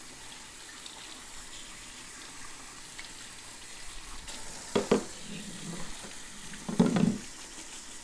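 Kitchen tap water running and splashing into a stainless steel sink as dishwasher filters are rinsed under it to wash out trapped food particles. Two short, louder sounds come about five and seven seconds in.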